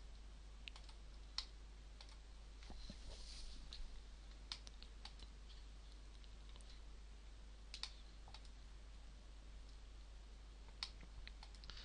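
Faint, irregular clicks of a computer mouse and keyboard over quiet room tone with a low steady hum, including a few quick clusters of clicks in the middle and near the end.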